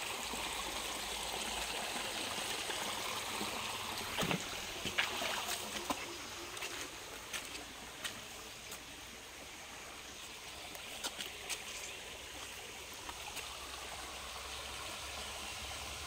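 Small rocky creek trickling over stones, a steady watery hiss, with a few scattered light clicks and knocks.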